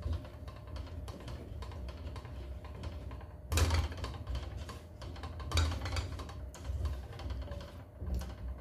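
Kitchen clatter of cookware and utensils: irregular light clicks and taps, with a few louder knocks from about halfway, over a steady low hum.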